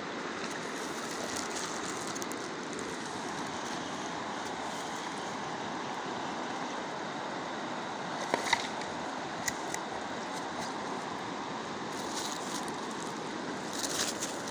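Steady rush of a fast river flowing past the bank. A few short sharp clicks and rustles come about eight seconds in and again near the end, as a freshly landed fish flops on dry grass and leaves and is handled.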